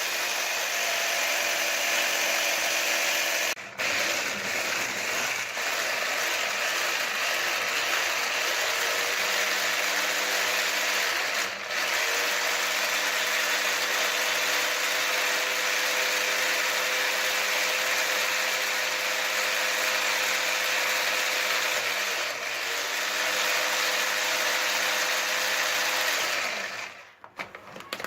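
Blender motor running loud and steady, grinding roasted hazelnuts until they release their oil and turn into a paste. It cuts out briefly a few times and stops near the end.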